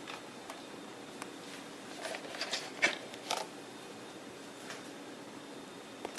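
Light handling noise: a few small clicks and rustles, bunched about two to three and a half seconds in, with one sharper click near the middle, over faint steady room hiss.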